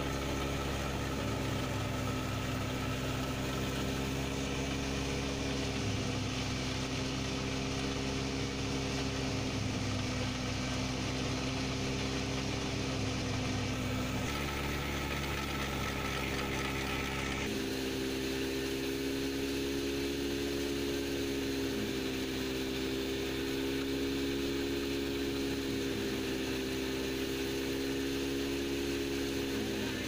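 Wheat threshing machine running steadily: a constant mechanical hum with a fast low throb. Its tone changes briefly about halfway through.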